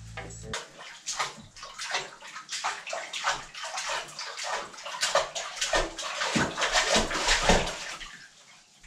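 A child splashing in a bathtub, the bathwater sloshing in quick irregular splashes that die down near the end.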